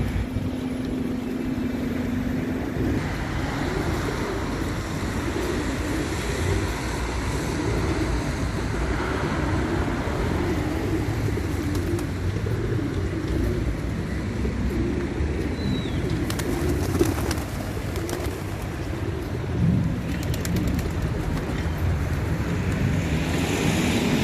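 Pigeons cooing, many low wavering calls overlapping continuously, over a steady outdoor background noise.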